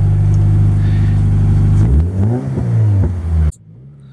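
Subaru BRZ's flat-four engine running through a newly fitted Invidia aftermarket exhaust, holding a steady idle and then revved in a few quick blips from about two seconds in. The sound drops away sharply near the end.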